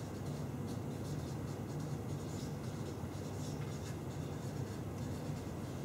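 Marker pen writing on a paper flip chart: faint, irregular scratchy strokes.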